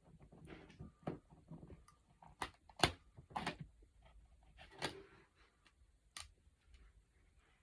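Scattered light clicks and scrapes of a screwdriver on the wall plate screw and the outlet's plastic wall plate as it is unscrewed and taken off; the sharpest click comes about three seconds in.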